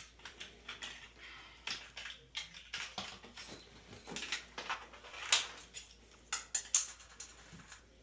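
Rummaging through a soft-sided tool bag: irregular small clicks, clinks and rustles of tools and fittings being handled, with a few sharper clicks in the second half.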